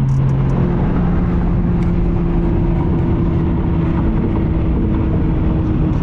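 Lotus Evora GT's V6 engine and tyre noise heard from inside the cabin at highway speed. The engine tone steps up in pitch about half a second in, then holds steady over a constant road hum.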